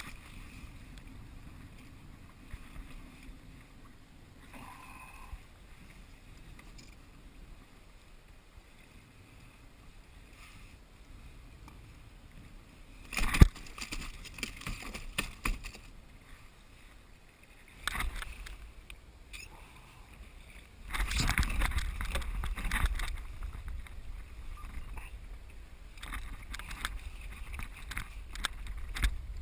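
Water lapping at a fishing kayak's hull. From about halfway in come repeated loud bursts of splashing and knocking beside the boat as a hooked salmon is brought to the landing net.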